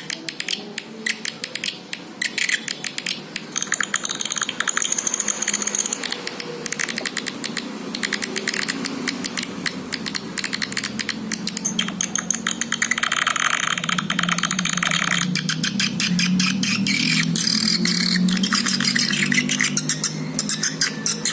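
Swiftlet lure call recording: a dense, rapid chattering twitter of clicks and chirps, with higher chirping at times. A low humming tone underneath grows stronger in the second half.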